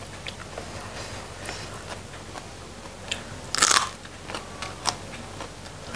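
One crisp, crunchy bite into a raw vegetable dipped in sambal about three and a half seconds in, followed by a few small chewing clicks.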